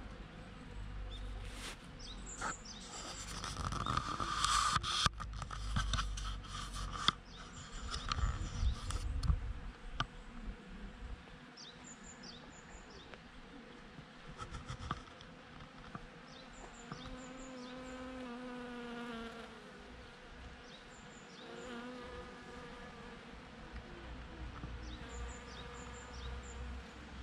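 Bees buzzing around cherry blossoms, their buzz rising and falling in pitch as they fly close past and away. Short high chirps come now and then, and there is a low rumble in the first few seconds.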